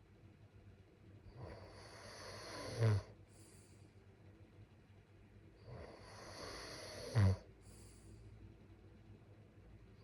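A sleeping person snoring: two slow breaths about four seconds apart, each a rising rush of air that ends in a short, loud, low snore.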